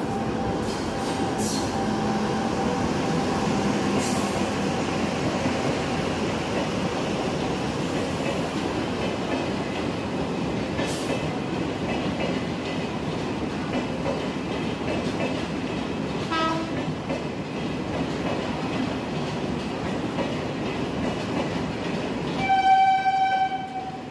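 Express train running through the station without stopping: a WAP-7 electric locomotive followed by a long rake of coaches, with a steady rumble of wheels on rail. A train horn sounds once near the end, about a second long, the loudest sound.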